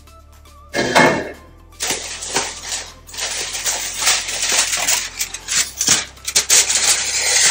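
A glass pot lid knocks as it is lifted off and set down about a second in. Then aluminium foil crinkles and rustles at length as it is peeled back from the top of a covered pan.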